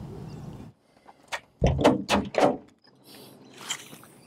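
A steady background rush that cuts off abruptly under a second in, then a quick cluster of four or five loud knocks and thumps about two seconds in, with a fainter knock near the end.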